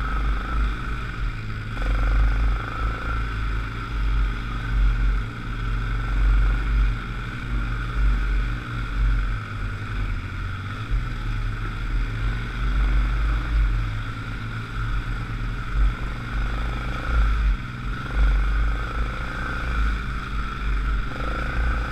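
ATV engine running at low speed while crawling over rough trail in four-wheel-drive low: an uneven low rumble, with a steady higher hum above it.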